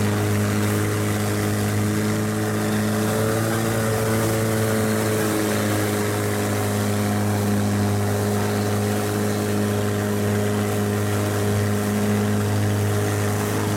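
Longtail boat's inboard engine running steadily at cruising speed, a deep even drone, with the hiss of wind and water over it; its pitch wavers briefly a few seconds in.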